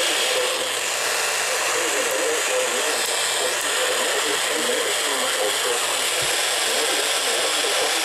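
Steady, loud static hiss of a weakly received broadcast, with a muffled voice faintly buried beneath it.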